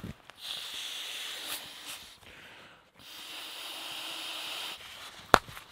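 Two long breaths blown by mouth into the valve of a sleeping pad, each an airy rush lasting under two seconds, with a pause between them. A single sharp click near the end.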